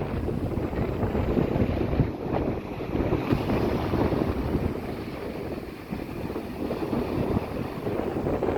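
Wind buffeting the microphone with a rough, gusty rumble, over a steady wash of sea noise; no gull calls stand out.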